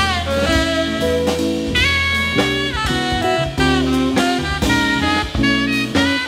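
Live jazz quartet: a saxophone leads with a fast, winding melodic line over double bass and a drum kit keeping time on the cymbals.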